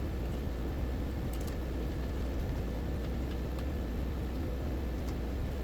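Steady low background rumble with a few faint, sparse clicks, likely from the blender's plastic parts being handled and fitted back together.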